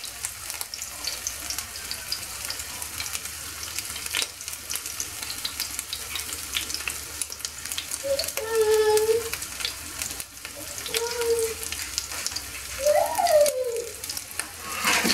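Kofta patty of minced meat and vegetables frying in olive oil over lowered heat: a steady sizzle full of small crackles and spits. A few short pitched sounds rise above it around the middle and again near the end.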